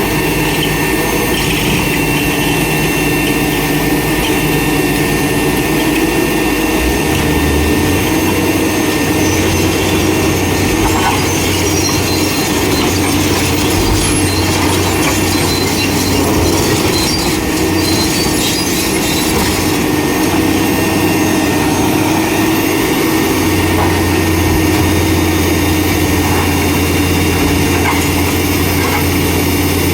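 Komatsu hydraulic excavators working under load: diesel engines running with a steady whine over them. The deep engine note changes about seven seconds in and again near the end.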